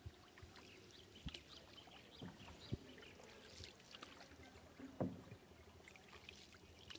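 Faint paddling of a small boat through floodwater: small splashes and drips from the paddle, with a few soft knocks, the loudest about five seconds in.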